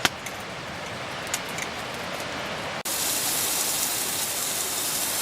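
Steaks sizzling in a frying pan over a campfire, a steady hiss with scattered crackling pops; about three seconds in the sizzle jumps abruptly louder and brighter, as if heard closer.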